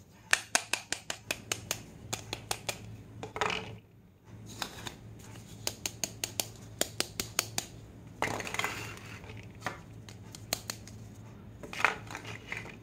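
Plastic toy fruits clacking and tapping as they are handled, knocked together and set down on a tabletop, in quick runs of sharp clicks, with a few short scraping sounds as pieces slide across the surface.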